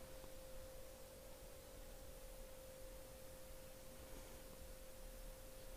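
Near silence: faint room tone with a thin, steady, unchanging tone.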